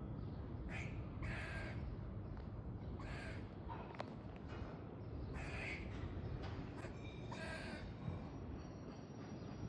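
Squirrel giving harsh warning calls, about five short rasping calls spaced a second or two apart.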